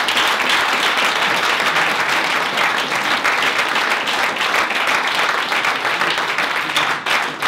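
Audience applauding: steady, dense clapping that starts to thin out near the end.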